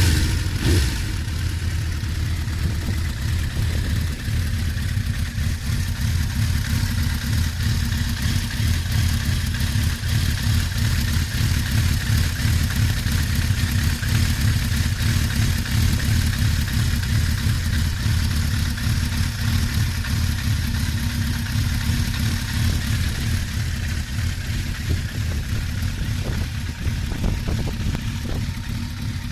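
Kawasaki GPZ900R's inline-four engine idling steadily just after being started, with its normal mechanical clatter. A manual cam chain tensioner has replaced the failed automatic one, and the unpleasant rattle from the worn-out tensioner is gone.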